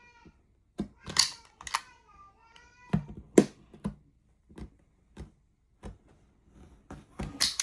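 Irregular sharp clicks and snips from hands working and cutting the sign materials, about a dozen spread unevenly. A young child's high voice sings briefly about two and a half seconds in.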